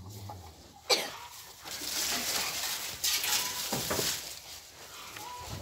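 A cow feeding on napier grass, with rustling and tearing of the grass stalks and a sudden sharp noise about a second in.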